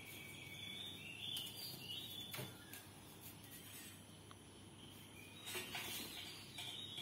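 Light clicks and rattles from a kitten's claws on a chain-link fence as it climbs, a few near the middle and a cluster near the end, over faint high-pitched chirping in the background.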